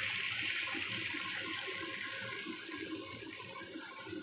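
Hot sauce pouring from a wok onto a plate of steamed tofu: a steady splashing pour that eases off near the end.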